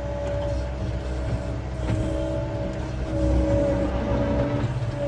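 John Deere 333E skid steer's diesel engine running steadily under hydraulic load as it drives the splitter, with a steady whine over a deep rumble. A short click about two seconds in.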